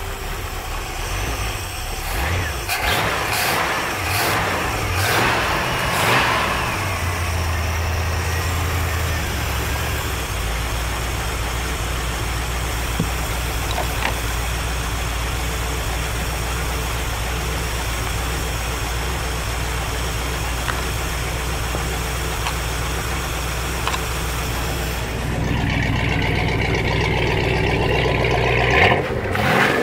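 Inboard V8 marine engine of a Supra ski boat running after a tune-up, sounding healthy. It is revved up and down a few times, then settles into a steady idle. Near the end, the rush of exhaust cooling water splashing onto pavement joins the engine sound.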